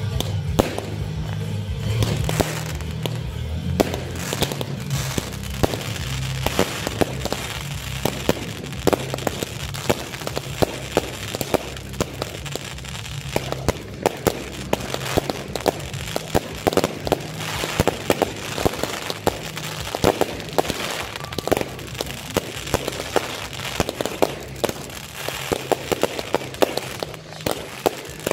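Fireworks going off continuously: a dense, irregular stream of sharp bangs and crackling, several a second.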